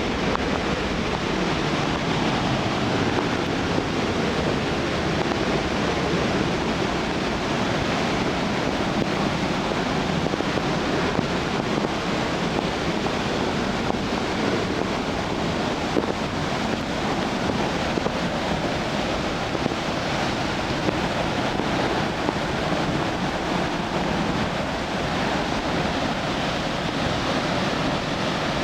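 The Ondaki waterfall at Nunobiki pouring heavily after typhoon rains, a loud, steady rushing of falling water that does not let up.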